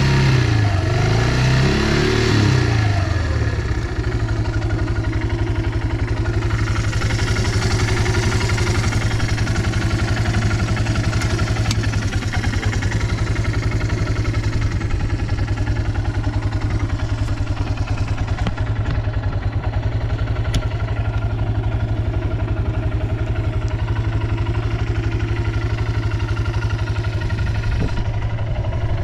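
Yamaha Breeze 125 quad's four-stroke single-cylinder engine revved up and down a few times, then settling into a steady idle about four seconds in. It runs evenly, with no abnormal noise.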